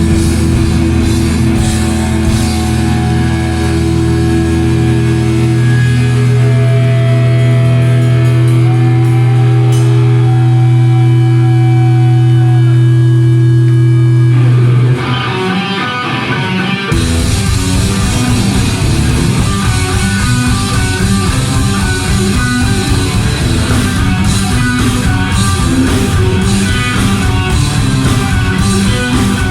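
Heavy metal band playing live: electric guitar and bass hold long ringing chords for about fifteen seconds. After a short dip, the full band with drums crashes in about seventeen seconds in and drives on with a fast, pounding rhythm.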